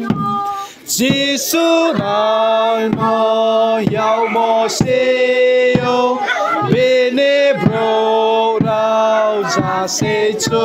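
A group of voices, children among them, singing a hymn together in unison: long held notes in phrases about a second long, with short breaks between them.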